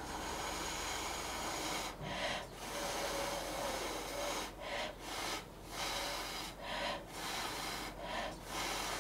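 A person blowing on wet acrylic pour paint on the bottom of an upturned cup to make it run off the edges: one long breath of air, then a string of shorter puffs about once a second.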